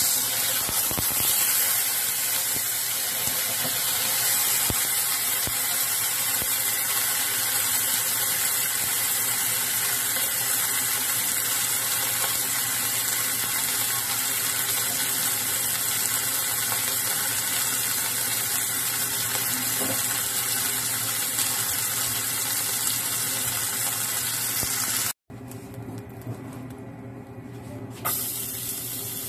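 A chicken thigh frying in oil in a small nonstick frying pan, with a steady sizzle. About 25 seconds in the sound cuts off abruptly and a quieter sizzle of hot fat in the pan follows.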